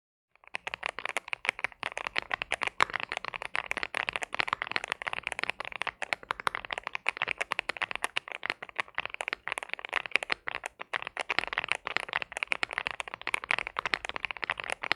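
Fast, continuous typing on a Cidoo V75 mechanical keyboard with CIDOO Matte linear switches and PBT Cherry-profile keycaps: a dense stream of keystroke clicks that starts about half a second in.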